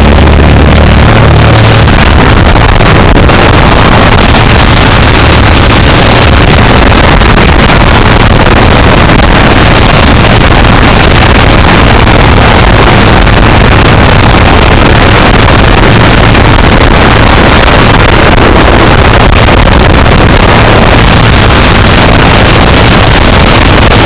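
Small single-engine jump plane's engine and propeller droning steadily, heard loud inside the cabin, with rushing air noise over it.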